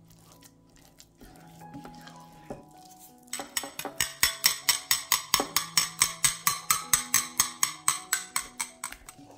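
Rapid, even tapping of a kitchen utensil against cookware, about five sharp strokes a second, starting a little over three seconds in and stopping near the end, over soft background music.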